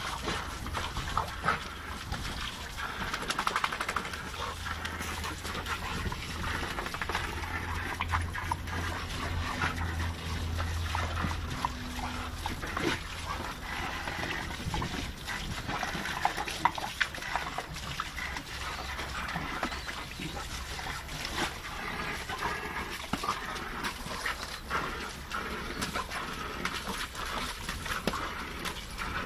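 Several blue American Staffordshire terriers playing rough in the spray of a garden sprinkler, with dog noises over a steady hiss and splash of water.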